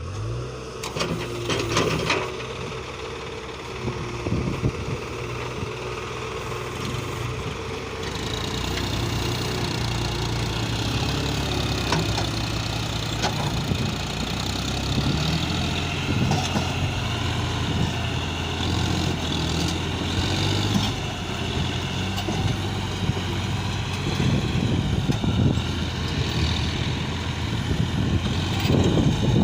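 Heavy diesel machinery running, the engine note rising right at the start, with a wavering high whine from about eight seconds in and a few knocks along the way. The sound comes from a JCB 3DX backhoe loader loading mud into a tractor trolley.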